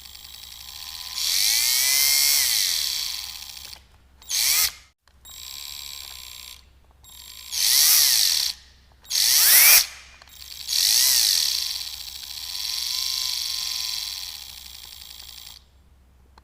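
Household electric drill run in a series of short trigger pulls, about seven bursts of differing length, the motor's whine rising as it spins up and falling as it winds down each time.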